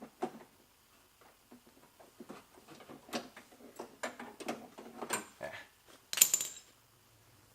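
Irregular small metallic clicks and clinks of a socket and ratchet working the door handle's mounting nut inside a car door, with one loud, sharp metallic clatter about six seconds in.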